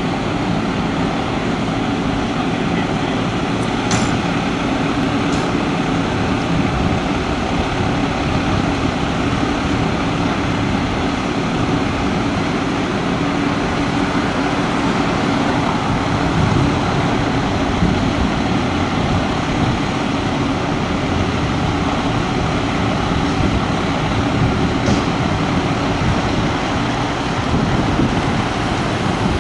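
Pierce Arrow XT fire engine's diesel idling steadily in the open station bay, a constant running sound with a low steady hum, before it pulls out.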